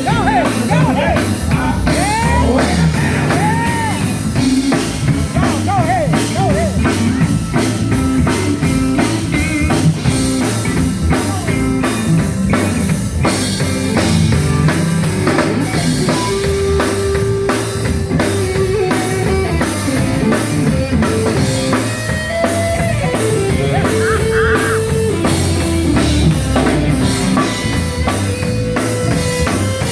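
Live gospel band music: a drum kit keeps a steady driving beat under guitar and held instrumental notes.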